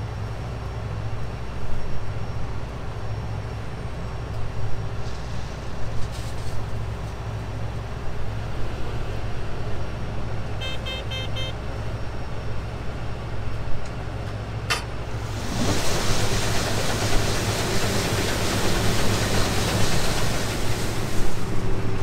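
John Deere combine running steadily, heard from the cab, with a short series of warning beeps about halfway through. Near two-thirds of the way in a click is followed by a much louder, even machine noise as the cab door opens onto the running machinery.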